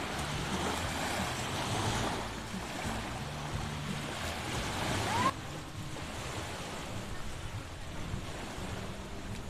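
Small waves washing on the shore with water splashing in the shallows; about five seconds in the sound cuts abruptly to quieter, steady surf with wind on the microphone.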